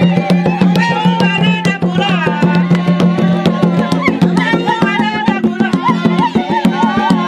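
Traditional Zambian drum music: fast, dense hand-drum strokes with voices singing over them and a steady low note held underneath.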